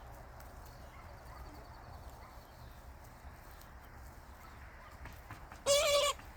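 Chickens in a coop: a low, steady background from the flock, then near the end one chicken gives a single short, loud call.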